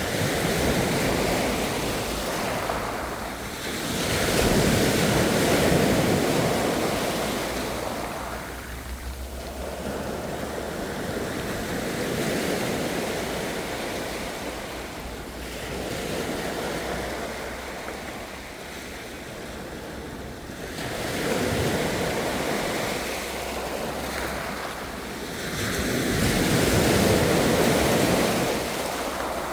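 Ocean surf: waves swelling and falling away in repeated surges every few seconds.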